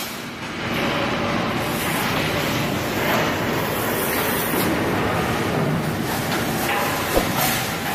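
Sheet-metal feeding line and factory machinery running with a steady, dense mechanical noise, and a single sharp click about seven seconds in.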